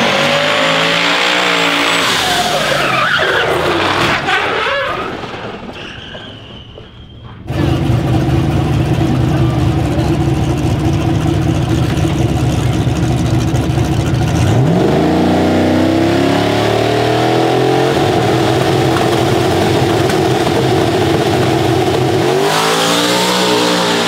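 Drag-strip engines. A pickup truck's engine revs up as it leaves the line and fades away. Then a Ford Mustang drag car's engine runs at a steady lumpy idle, climbs to a higher steady rev about halfway through and holds it, and its revs rise again near the end as the car launches.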